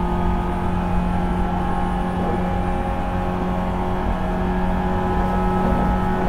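JR 475 series EMU KuMoHa 475-42 running, heard from the vestibule deck: a steady deep rumble of wheels on rail, with the whine of the MT54 traction motor and its 19:80 gears in several nearly level tones.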